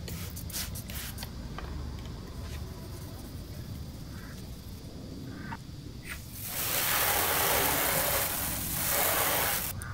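Soapy-water wet sanding of a plastic headlight lens by hand with 1500-grit sandpaper: a faint rubbing, with a few spray-bottle squirts near the start. About six and a half seconds in, a hose sprays water over the lens in a loud steady hiss for about three seconds, rinsing off the sanding slurry.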